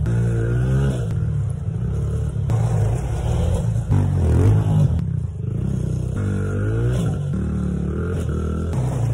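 Engines of a four-wheeler and small dirt bikes running on a dirt jump track, a steady low drone with throttle revs that rise in pitch just after the start and again about six seconds in.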